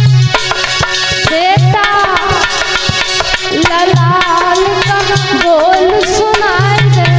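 Tabla playing a steady rhythm. About a second and a half in, a woman joins with a slow, plaintive sung melody of long held notes with wavering ornaments.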